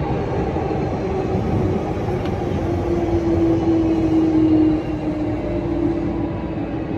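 Hankyu 7000 series electric train heard from inside the front cab as it runs through a station, with steady wheel-on-rail rumble and a motor hum that is loudest in the middle and dips slightly in pitch towards the end.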